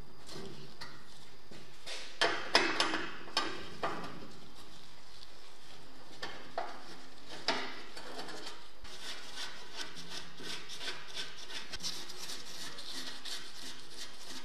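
A steel wrench clinking and scraping on rusted nuts as they are turned loose on the bolts of a rusty steel smoker body. A cluster of sharp metal clicks comes about two seconds in, then two single clicks, then a run of lighter ticks, about two a second, near the end.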